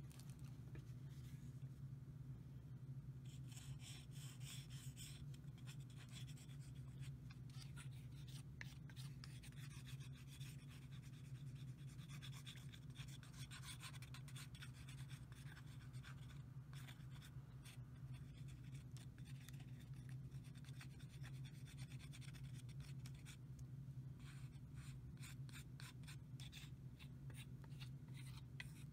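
Faint, irregular rubbing and scratchy handling sounds of hands working a liquid finish from a plastic squeeze bottle onto a wooden knife handle, over a steady low hum.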